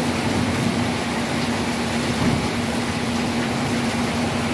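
Heavy rain pouring down in a steady hiss, over a steady low machine hum.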